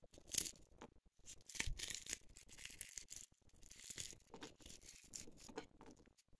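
Walnut kernels crumbled between the fingers: faint, irregular dry crackling and rustling with small clicks.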